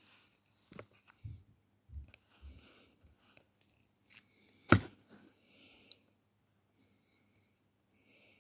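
Close-up handling noises of hand-made bassoon reed work: pliers and cane clicking and knocking, with soft rustles and low bumps. One sharp click a little past the middle is the loudest.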